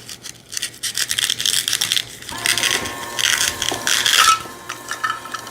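Hard plastic toy pieces clicking and clattering as they are handled. Then a toy knife cuts a Velcro-joined toy food apart, with a crackling rasp of Velcro tearing for about two seconds, over a steady tone.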